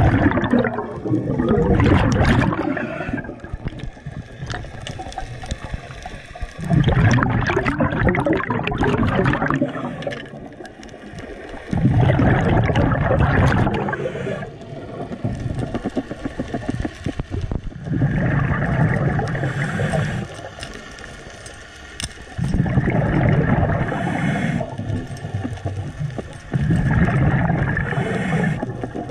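Scuba diver breathing through a regulator underwater: loud bursts of exhaled bubbles gurgling about every five seconds, with quieter pauses between breaths.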